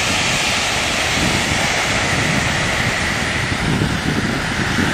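Amateur solid rocket motor burning on the ground with a steady rushing roar, a long-burn motor giving out a thick column of white smoke.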